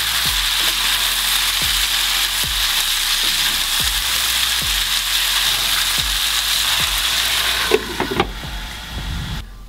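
Zucchini, bell pepper and onion sizzling in oil in a hot frying pan, stirred with a wooden spatula in regular strokes. Near the end a glass lid goes on the pan and the sizzle drops to a muffled hiss.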